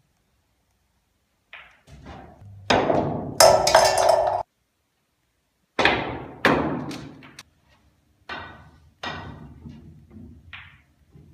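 Snooker balls knocking on a full-size table: sharp clacks of cue tip on ball and ball on ball, and a jumped cue ball landing and bouncing on the cloth and cushions. The knocks come in a string of separate hits, the loudest pair about three seconds in.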